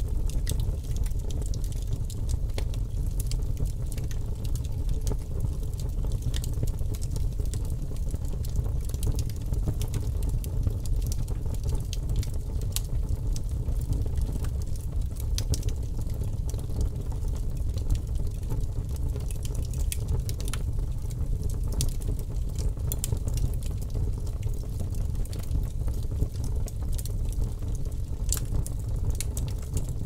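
Wood fire burning: a steady low rumble under many sharp crackles and pops at irregular intervals.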